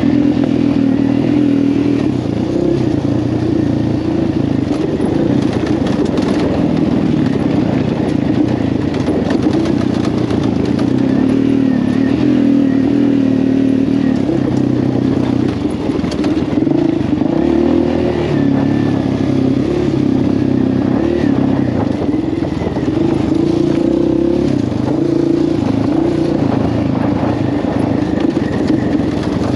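Quad bike (ATV) engine running steadily while riding, its pitch rising and falling with the throttle, with some rattling clatter over it.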